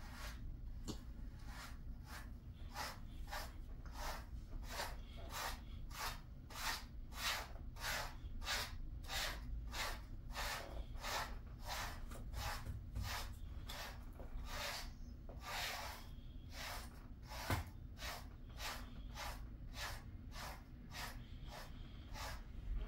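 Handheld pet brush stroking through a Jindo dog's thick coat, a steady run of short brushing strokes at about two a second.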